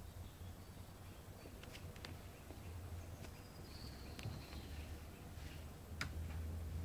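Faint garden ambience: a steady low rumble, a few small sharp clicks, and a faint high bird call held for about a second, about four seconds in.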